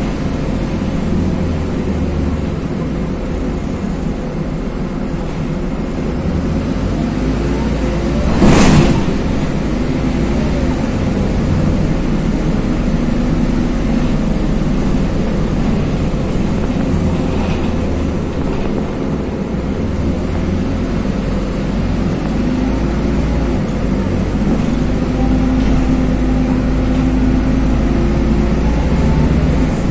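LiAZ 5292.21 city bus heard from inside while driving: engine and drivetrain running with road and tyre noise, the engine note changing as the bus changes speed. One short, loud burst of noise about eight and a half seconds in.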